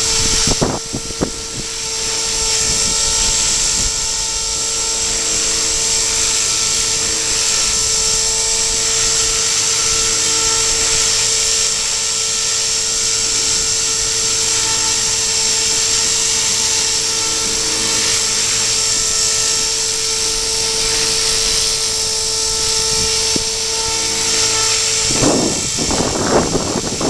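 Radio-controlled model helicopter hovering in high wind: a loud, steady high whine from its motor and rotor. About two seconds before the end the whine stops and gusts of wind buffet the microphone.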